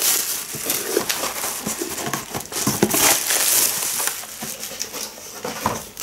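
Packaging crinkling and crackling as it is handled and unwrapped by hand, a dense run of small crackles.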